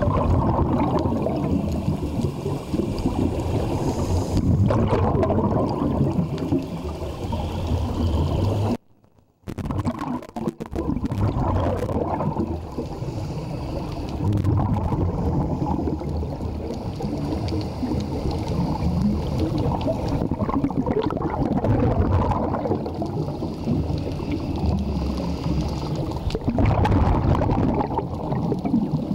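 Muffled underwater sound heard through a camera housing: the rumbling and bubbling of a scuba diver's regulator exhalations, with a fainter hiss coming and going. It cuts out for about half a second about nine seconds in.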